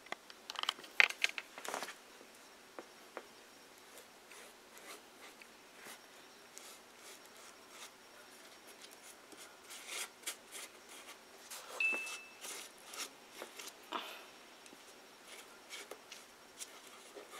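Paper towel being pressed onto a cardboard wall and worked with a glue-and-water paintbrush: scattered soft rustles, crinkles and taps, with a brief high squeak about two-thirds of the way through.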